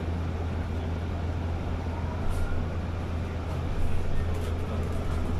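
Cabin noise inside a moving BYD K9R battery-electric bus: a steady low drone over even road noise, with a faint rising whine about two seconds in.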